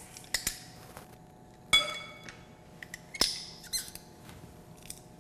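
Metal garlic press being opened and handled: a few sharp clicks, with a ringing metallic clink a little under two seconds in and another sharp click past the three-second mark.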